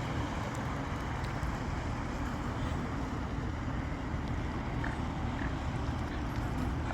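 Steady low outdoor rumble with no clear source, with a few faint, short bird chirps about five seconds in.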